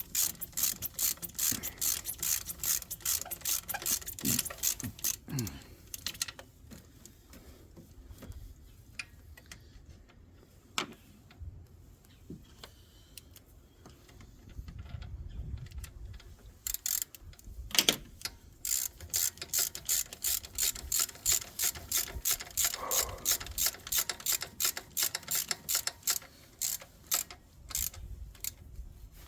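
Ratchet wrench clicking in quick, even runs as the thermostat housing bolts are run down. The clicking stops for about ten seconds in the middle, with only a few scattered clicks, then starts again.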